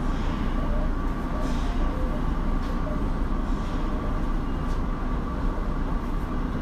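A Tokyo Metro Marunouchi Line 02 series subway train standing at the platform, its equipment running with a steady low rumble and a thin, steady high whine over it.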